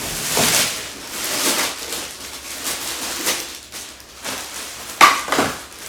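Packing material being pulled from a cardboard shipping box and handled: a run of rustling, scraping swishes, with the loudest, sharpest one about five seconds in.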